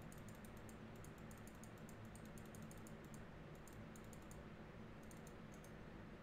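Faint clusters of quick computer clicks over a low, steady room hum.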